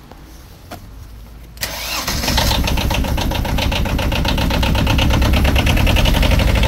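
A drain-jetting machine's engine is started about a second and a half in, after a couple of faint clicks. It catches at once and settles into a steady run with an even pulsing beat.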